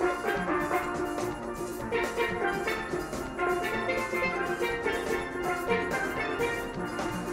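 Steel orchestra music: many steel pans playing a quick melody and chords over a steady drum beat.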